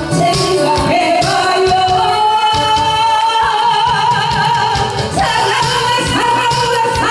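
Woman singing into a microphone over an amplified backing track with a steady beat, holding one long note from about a second in until about five seconds in.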